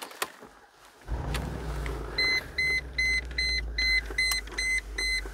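Dashboard warning chime in a Mercedes G55 AMG beeping repeatedly, about two and a half short beeps a second, as the dash lights up with warnings after the key is turned. Under it a low steady rumble starts suddenly about a second in.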